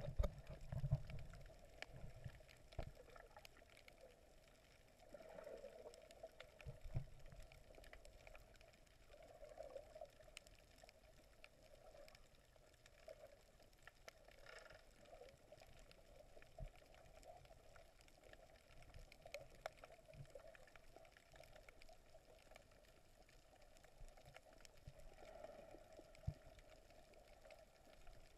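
Faint, muffled underwater ambience picked up by a camera in a waterproof housing: a steady low hum with scattered small clicks, and a few low thumps in the first second.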